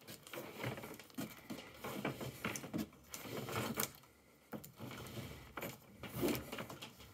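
Irregular rustling, scraping and light knocks of network cable being handled and pulled at a hole cut in a plasterboard wall.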